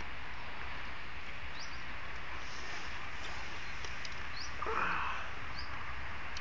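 Outdoor lakeside ambience: a steady hiss with small birds chirping briefly three times, and one louder short call or squeak about five seconds in.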